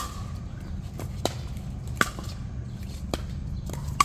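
A ball being hit back and forth in a rally: five sharp pops, the louder near hits about every two seconds with a short ringing ping, fainter far-side hits in between.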